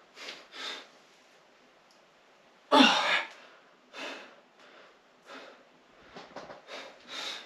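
A man's short, sharp breaths, with one loud, forceful exhale about three seconds in, as he braces under a loaded barbell before a squat.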